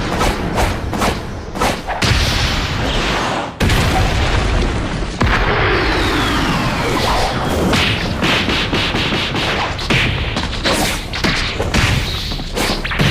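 Anime fight sound effects: a dense, loud run of booms, impacts and whooshes with no break, and a falling whistle-like glide about five seconds in.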